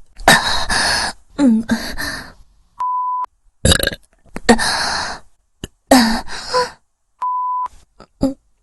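Several loud, drawn-out human burps in quick succession. A short steady beep sounds twice between them.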